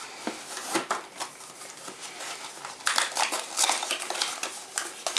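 Hands handling packaging: a small cardboard box lifted out of a polystyrene foam tray and opened. Irregular scrapes, taps and rustles, busiest about three seconds in.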